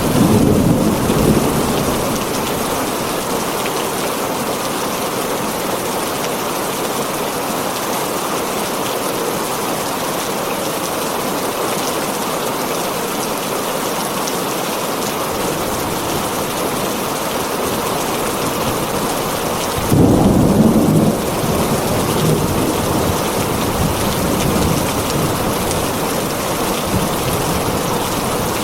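Heavy rain falling steadily on a tin roof, with thunder rumbling at the start and a louder burst of thunder about twenty seconds in that rumbles on for a few seconds.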